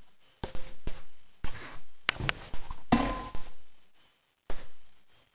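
A handful of sharp knocks and clicks, about six, spaced half a second to a second apart. One, about three seconds in, has a short ringing clink to it.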